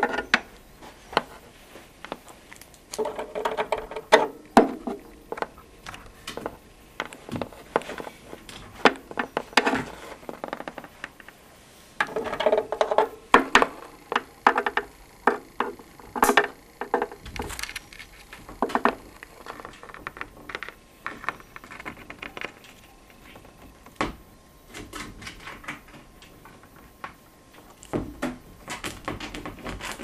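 African grey parrot working at something right by the microphone with its beak: an irregular run of sharp clicks and taps, with two stretches of denser scratching and crunching.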